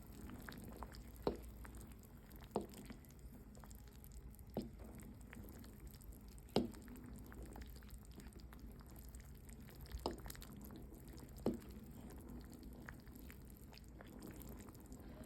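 Light, irregular knocks of a utensil against a cooking pot, about six of them spaced a second or more apart, over a low steady hum.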